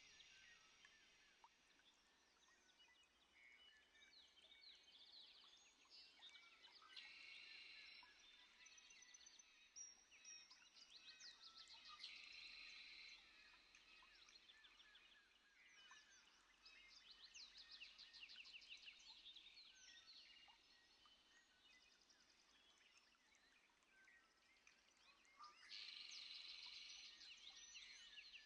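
Faint chorus of several songbirds chirping and trilling, with a denser burst of song near the end.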